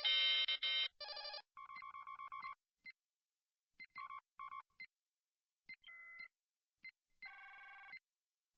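A string of Star Trek computer console beep sound effects, separated by dead silence. A dense warbling trill in the first second is the loudest. Shorter chirping beep runs, single blips, a brief steady tone, and another warbling burst near the end follow it.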